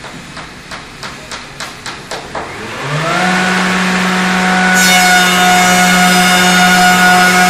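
A door-sizing machine's electric saw motors start up about three seconds in, their hum rising quickly in pitch and then holding steady. About five seconds in a louder rushing hiss joins the hum. The motors are preceded by a run of sharp knocks, about three a second.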